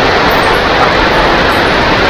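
Heavy rain falling steadily: a loud, even hiss with no breaks or single drops standing out.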